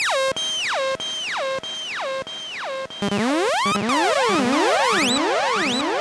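Synthesizer sound-effect samples. First a tone that swoops sharply downward, repeated about every 0.6 seconds with each repeat quieter. About three seconds in it gives way to a new sound: many overlapping tones gliding up and down and crossing each other.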